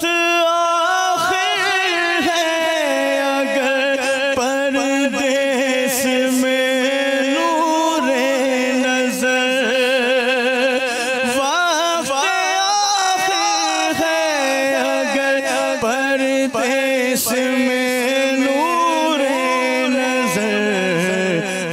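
Wordless singing: a voice carries a wavering, ornamented melody with vibrato over a steady held drone note, an interlude between the sung verses.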